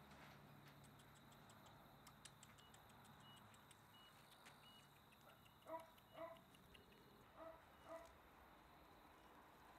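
Faint background with four short, high animal calls in two pairs around the middle, over light high-pitched ticking.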